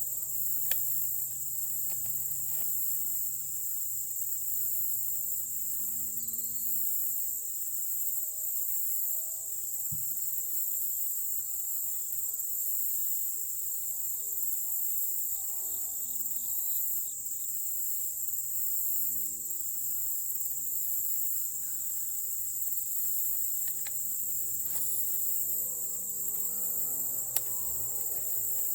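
Steady chorus of insects, a continuous high-pitched shrill drone, with a faint lower hum underneath that slowly slides up and down in pitch.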